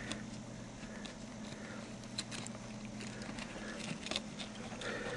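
Faint small clicks and taps of a mobile phone's plastic case and new LCD module being handled and fitted, over a steady low hum.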